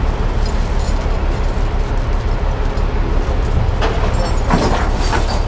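Heavy wrecker truck's diesel engine running steadily, with a few short knocks about four seconds in.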